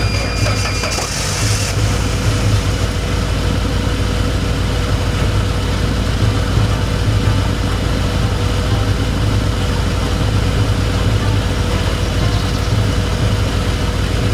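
Saab 9-3's engine idling steadily, just started on a portable jump-starter pack after sitting unused through the winter. A short rushing noise comes in the first second or two, then the idle holds even.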